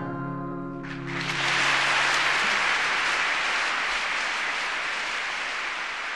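The last chord of a recorded song rings out, then about a second in an audience breaks into applause that swells and slowly fades.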